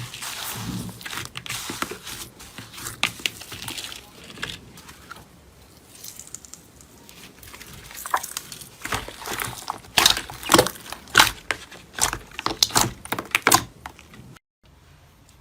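Slime being squeezed and poked by hand, giving a run of crackling pops and clicks that grow denser and louder in the second half and break off suddenly near the end.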